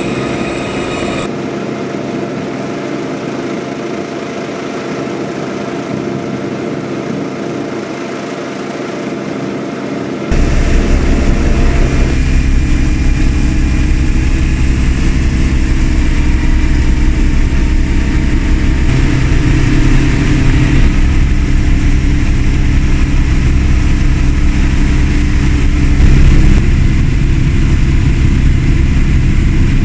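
Helicopter engine and rotor noise in flight, heard from on board as a steady drone. The sound changes abruptly about a second in and again about ten seconds in, becoming louder and heavier after the second change.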